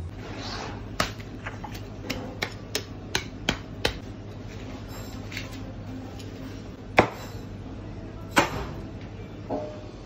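Fillet knife cutting through a large fish's rib bones in a series of sharp clicks, about two to three a second, then two louder knocks as the fish is handled on a plastic cutting board.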